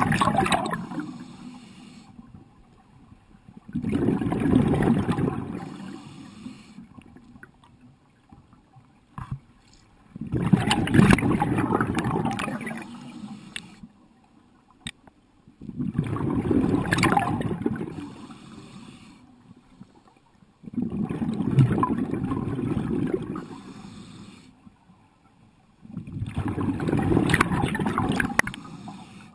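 Scuba diver's regulator exhaust: a loud rush of exhaled bubbles rumbling past the camera about every five to six seconds, six breaths in all, each lasting two to three seconds with quieter gaps between.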